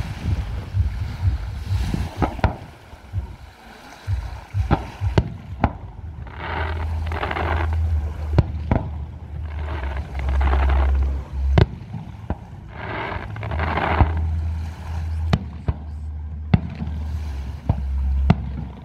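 Fireworks shells bursting, a string of sharp bangs at uneven intervals, some close together. From about six seconds in, a steady low rumble runs beneath them until near the end.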